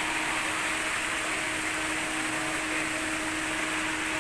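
Steady hiss of churning pond water with a constant low motor hum underneath, typical of a fishing-pond aerator running.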